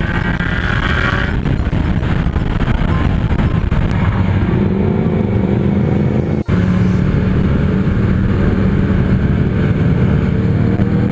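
Yamaha XJ6 Diversion's 600 cc inline-four running under way, with wind rushing over the microphone. The engine pitch climbs in the first second, holds steady, then rises slowly again near the end as the bike accelerates. The sound drops out sharply for an instant a little after halfway.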